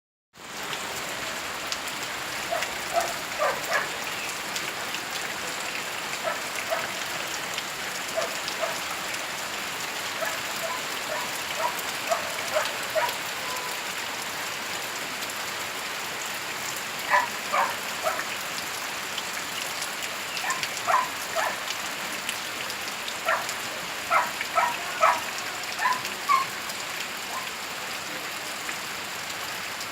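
Steady rain falling, with louder individual drops plinking irregularly over it, in scattered clusters.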